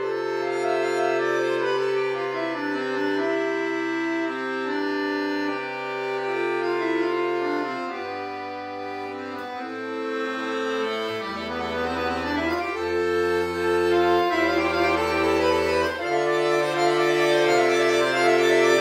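Chromatic button accordion playing solo: held chords over sustained bass notes. About halfway through, the bass drops to deep low notes, and the playing grows louder near the end.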